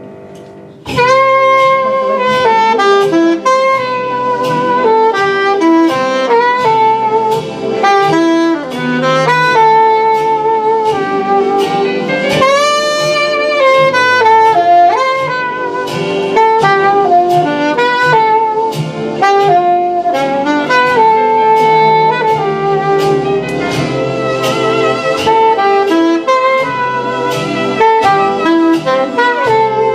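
Instrumental jazz with a saxophone playing the melody over a bass line and a steady beat, starting about a second in.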